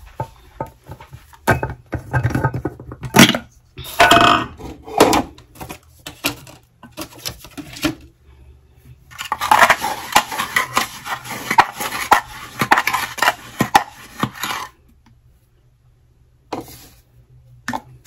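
A glass jar of sugar being handled: scattered knocks and clinks against the glass, then about five seconds of steady scraping and rattling as a measuring cup digs sugar out of the jar, then a few more clinks near the end.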